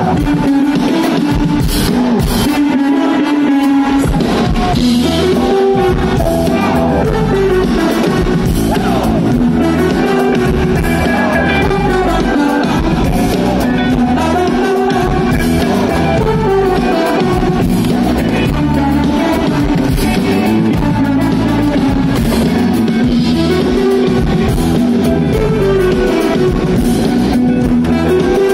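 Live band playing, drums and guitar under a woman singing into a microphone.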